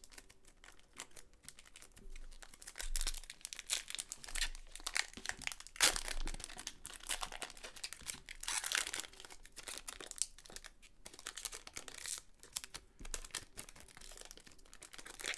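Foil wrapper of a 1997 Bowman's Best basketball card pack crinkling and tearing as hands peel it open. It comes in irregular crackling bursts, loudest about six seconds in and again around nine seconds.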